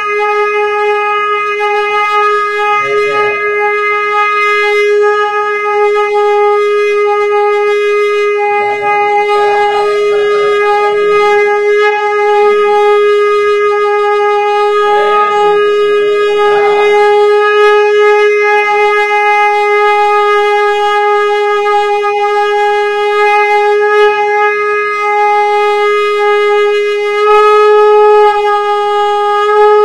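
Conch shell (shankh) blown in one long, unbroken steady note, held the whole time without a breath; it swells a little louder and slightly higher near the end.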